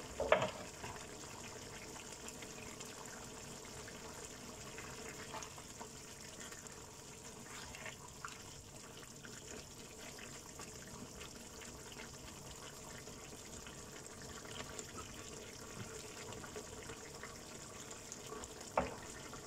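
Tomato-based chicken afritada sauce simmering in a frying pan, a faint steady bubbling hiss as the sauce cooks down near the end of cooking. A sharp clack just after the start and another near the end as a knife and then a plastic spatula are set down on a plastic cutting board.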